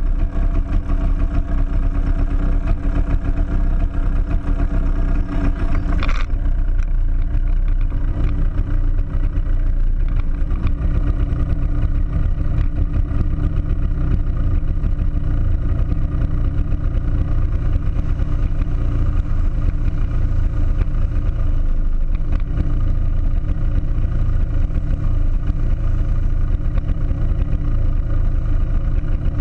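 Steady hum of a racing kart's engine after a crash, with a sharp knock about six seconds in. After the knock the engine tones fade and a heavy, fluttering low rumble carries on.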